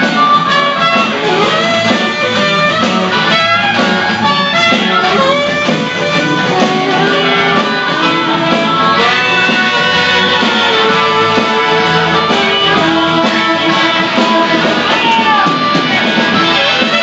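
Live band playing: electric guitar with saxophone, trumpet and harmonica, all going at once, steady and loud.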